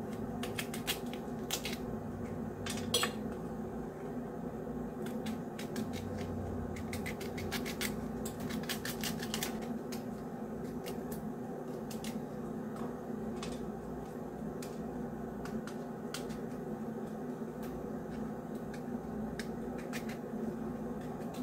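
Small knife cutting and scraping the spiny rind off a piece of raw jackfruit, with scattered sharp clicks and scrapes as the blade and fruit touch a steel plate, mostly in the first half. A steady low hum runs underneath.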